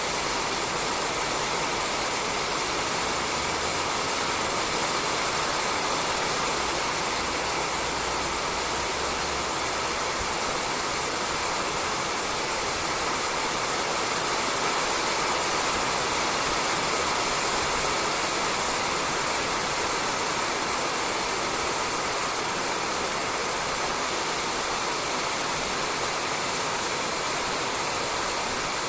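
Steady rain falling on a roof, an even hiss without breaks.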